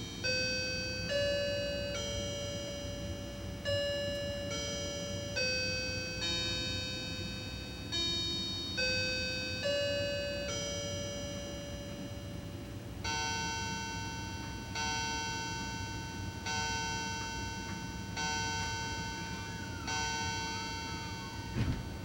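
Linden quartz mantel clock's electronic chime playing the hour: a melody of ringing chime notes for about thirteen seconds, then five lower, evenly spaced hour strikes for 5 o'clock. A brief knock comes near the end.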